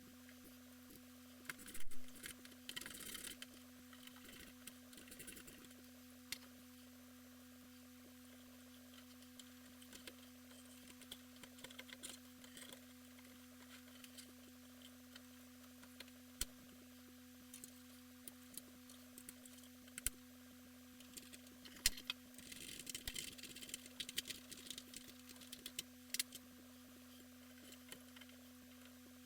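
Scattered clicks and small clatters of computer parts being handled, over a steady hum. There is a louder clatter about two seconds in and a busier run of handling noise about three-quarters of the way through.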